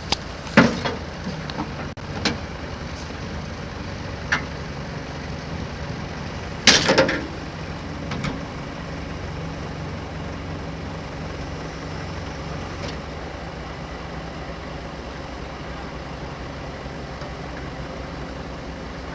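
Diesel engines of two wheel loaders running steadily as they lift a steel shipping container between them, with a few sharp knocks and clanks, the loudest about seven seconds in.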